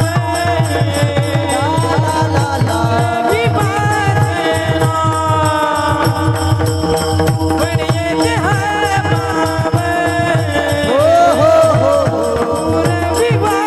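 Marathi devotional bhajan singing in a kirtan, a melismatic voice over a steady held drone with a regular hand-drum beat.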